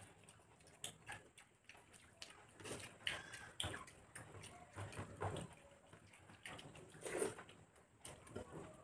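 Wet, irregular eating sounds: fingers squishing and mixing soft khichuri on plates, with mouth smacks and chewing, and scattered small clicks.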